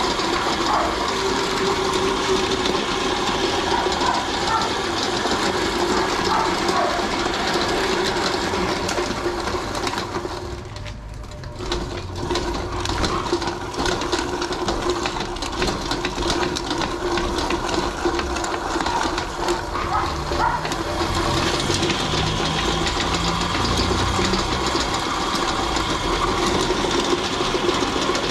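Motor-driven meat grinder running steadily while grinding raw chicken, with a constant mechanical hum. It drops briefly in level about eleven seconds in, then runs on.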